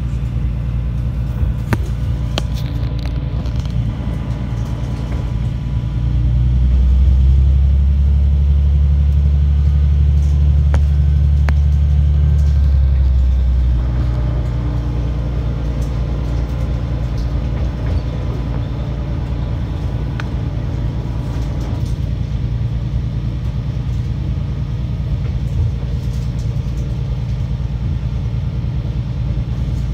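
JR KiHa 120 diesel railcar running along the track, heard from inside the car as a steady low engine rumble. The engine note swells louder about six seconds in and drops back about halfway through, with a few faint clicks from the running gear.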